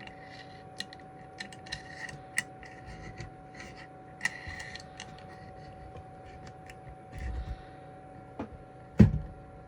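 Small clicks, taps and brief scratchy rustles of tools and parts being handled on a workbench, over a faint steady hum. A dull thump comes about seven seconds in, and a sharp knock near the end.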